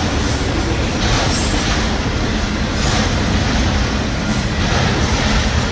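Freight train rolling past: a steady, loud rumble of steel wheels on rail.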